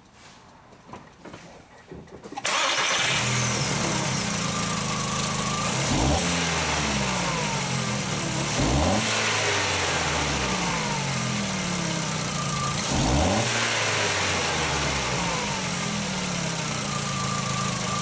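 2004 Volkswagen Jetta's 2.0-litre four-cylinder engine starting about two and a half seconds in, then idling evenly, revved up briefly three times. A known-good ignition coil pack is now fitted, and it runs really good, without the cylinder 3 misfire.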